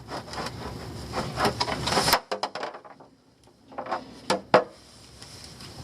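Rustling handling noise with scattered clicks that cuts off suddenly about two seconds in, followed by a few sharp knocks around four seconds in.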